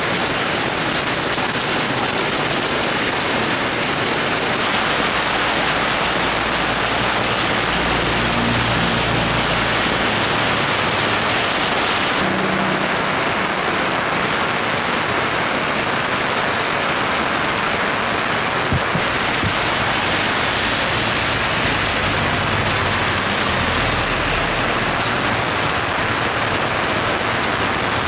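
Heavy rain falling steadily in a dense, even hiss, its character shifting abruptly about twelve and nineteen seconds in.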